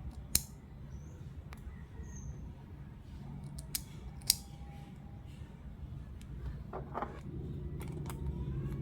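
Sharp clicks of small hard plastic parts being handled, three loud ones in the first half, over a low steady hum; a steadier low drone comes in about seven seconds in.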